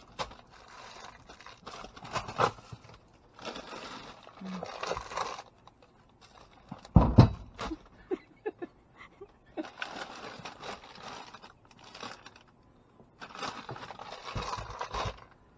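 Plastic bags and discarded produce rustling and crinkling in several bouts as they are poked and shifted with a stick in a dumpster, with one loud thump about seven seconds in.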